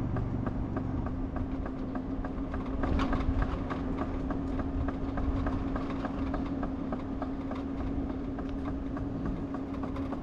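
A vehicle driving at a steady speed, heard from inside the cab: an even engine and road drone with a quick, regular ticking or rattling of about four beats a second.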